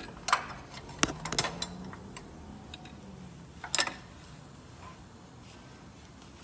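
A few sharp metal clicks and clinks from a hand wrench working bolts loose, with the loudest coming nearly four seconds in.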